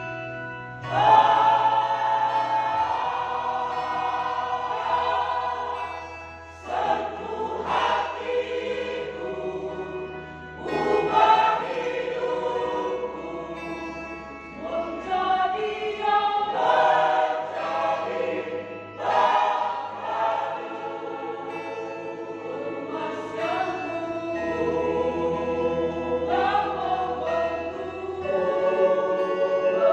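A mixed church choir singing a hymn in several parts, in sustained phrases that swell and ease off, with the voices coming in strongly about a second in.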